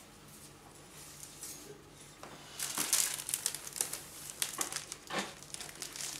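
Irregular crinkling and rustling in quick bursts, starting about two seconds in.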